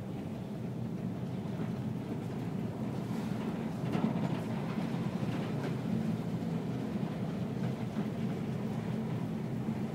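Steady low rumble of a ship under way in heavy seas, heard from inside behind the window glass: engine and hull noise mixed with the wind and sea outside. A few faint clicks or rattles come around the middle.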